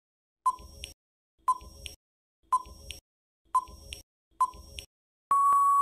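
Quiz countdown timer sound effect: five short ticks about one a second, then a long steady beep starting near the end that marks the end of the countdown.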